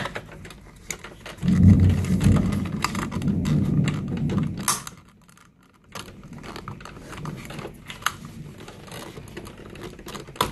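Hard plastic relay cover being worked into place over a refrigerator compressor's wiring: many small plastic clicks and rattles, with a louder rubbing rumble about two to four seconds in.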